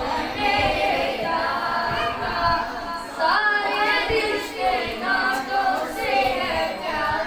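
A boy singing a naat, an Urdu devotional hymn in praise of the Prophet, solo into a handheld microphone, in long melodic phrases.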